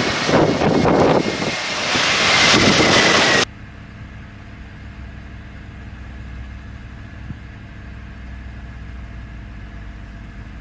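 Airbus A321neo airliner landing: loud jet engine noise with a high whine slowly falling in pitch, cut off abruptly about three and a half seconds in. A much quieter, steady low engine hum follows, from a small propeller plane on the runway.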